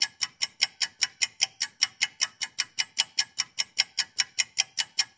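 Fast, even clock-like ticking, about five ticks a second: a ticking sound effect laid under the slides.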